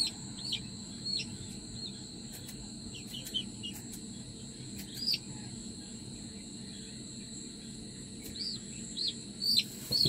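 Young Aseel chicks peeping: short, rising-and-falling cheeps scattered through, in small clusters about a second in, around three seconds, at five seconds and again near the end, over a steady high-pitched whine.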